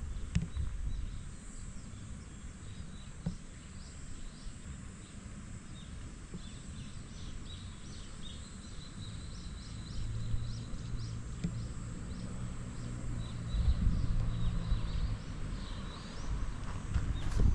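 Outdoor summer ambience: insects drone steadily at a high pitch, with short chirps over it. Low wind rumble runs underneath, and a low hum grows louder in the second half.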